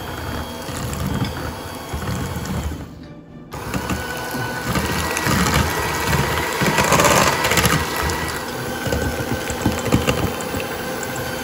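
Electric hand mixer running, its twin beaters whipping mascarpone, cream, sugar and egg yolks in a stainless steel bowl. The sound breaks off briefly about three seconds in, then carries on.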